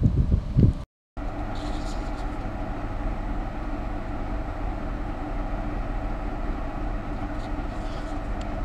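Steady hum and rumble inside a passenger train carriage, a former Spirit of Capricorn car. It follows a moment of louder, choppy sound and a brief gap about a second in.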